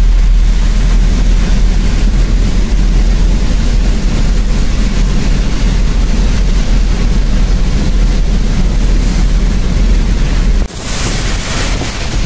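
Steady cabin noise of a vehicle driving through heavy rain: a deep rumble with rain and road hiss. About eleven seconds in it changes abruptly to a quieter, hissier noise.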